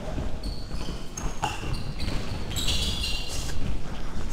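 Athletic shoes squeaking in short high chirps on a sports-hall floor as players run and turn, several times, loudest about two and a half to three and a half seconds in, over the thudding of running footsteps.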